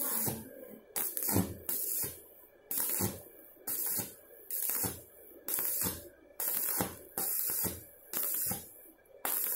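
Stick welding with a ZiziWeld Arc 2500 mini inverter welder: the electrode's arc on steel crackles and hisses in short bursts, about one a second, as the arc is struck and broken again and again.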